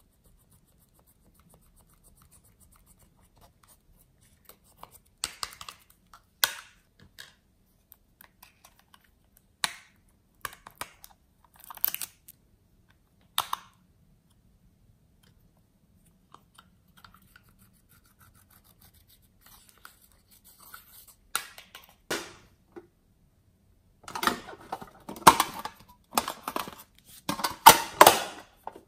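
Plastic makeup cases being handled and pressed eyeshadow scraped with a plastic stick: short scattered scrapes and clicks, then a busier run of clicks and rustling in the last few seconds.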